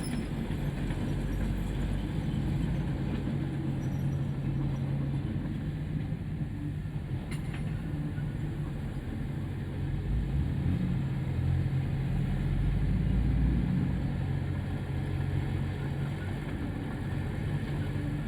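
Heavy diesel machinery running steadily under load, louder for a few seconds past the middle. There is a single sharp click about seven seconds in.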